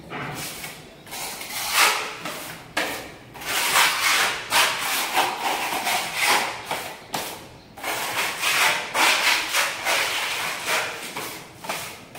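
Steel putty blade scraping and spreading wall putty across a plastered wall in a run of short, repeated strokes.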